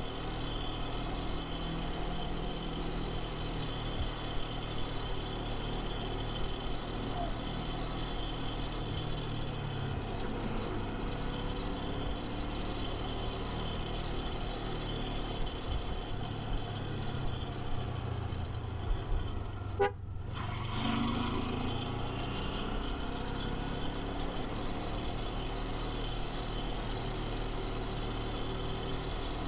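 Kawasaki Versys 250 engine running while riding, with steady engine and road noise. The sound breaks off sharply for a moment about twenty seconds in, then carries on.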